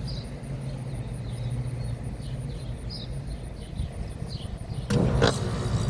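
American Standard Silver Series 3.5-ton central air conditioner condenser, with its scroll compressor and fan, starting up abruptly about five seconds in and running on. Before it starts, small birds chirp over a low steady hum.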